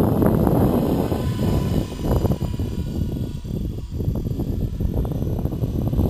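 Wind buffeting the microphone, with the faint steady whine of a 500-size flybarless RC helicopter flying overhead.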